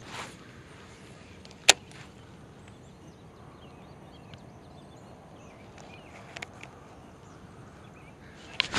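One sharp click from a baitcasting reel about two seconds in, over quiet lakeside air with faint bird chirps and a few light ticks near the end.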